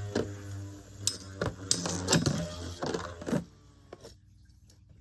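Metal Fight Beyblade tops spinning and clashing in a plastic stadium: a steady whir with rapid metallic clicks and knocks. The whir fades out about three seconds in, and the clicking stops shortly after.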